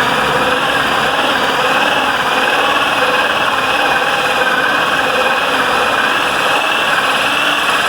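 Electric drill running steadily under load, boring a hole into a door for a deadbolt lock.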